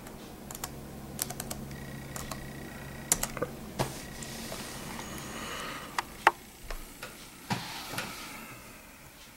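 Keys tapped on a Dell Inspiron 1200 laptop keyboard as a password is typed: quick, irregular clicks, with a few louder taps in the second half.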